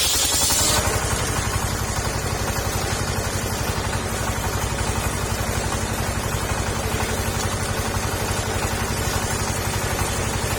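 Petrol engine of a mobile circular saw rig running steadily between cuts. A high hiss stops about a second in, leaving only the engine.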